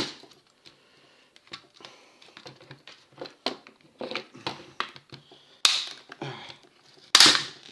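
Plastic trim on a cordless drill's handle being pried and picked at, with irregular small clicks and taps, then two loud sharp cracks as the weak plastic gives way near the end.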